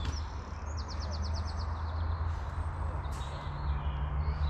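A songbird singing a quick run of repeated high notes about a second in, with a few fainter calls later, over a steady low rumble.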